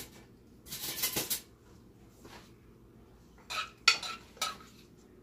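A metal utensil scraping and clinking against a skillet as shrimp and fruit glaze is spooned out of it: a scrape about a second in, then three sharp ringing clinks near the end.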